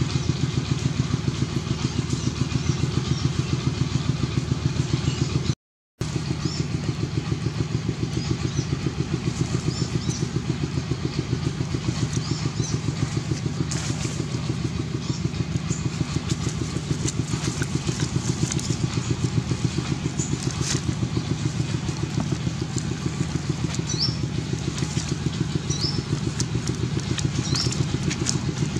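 An engine running steadily with an even, rapid low pulse, cutting out for a moment just before six seconds in. Short high chirps sound now and then over it in the second half.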